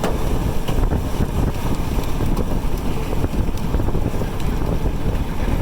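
Strong wind buffeting the microphone: a loud, continuous low rumble that surges and dips unevenly.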